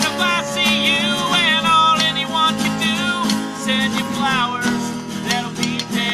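Music: strummed acoustic guitar chords with a sliding, wavering melody line over them.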